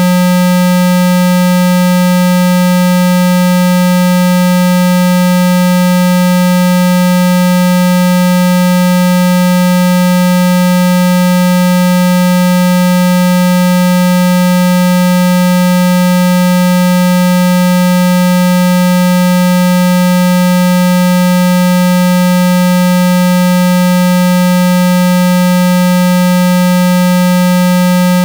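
A steady, unchanging electronic tone at 195 Hz, with fainter overtones above it. This is a water-eject tone, meant to be played at full volume on a phone speaker so that its vibration pushes trapped water out.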